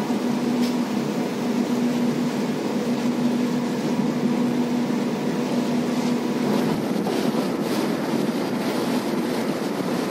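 A ship's engine running with a steady drone, heard on deck. A steady hum in it fades out about two-thirds of the way in.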